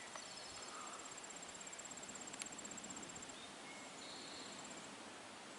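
Insects trilling faintly: a high, fast, evenly pulsed trill that breaks off a little past halfway and returns briefly near the end, over a steady outdoor hiss, with one sharp tick in the middle.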